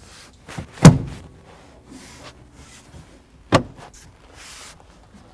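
2003 Volvo V70 cargo-area plastic side trim panel being pressed in by hand, its retaining tabs snapping into place: two sharp snaps, one about a second in and another about two and a half seconds later.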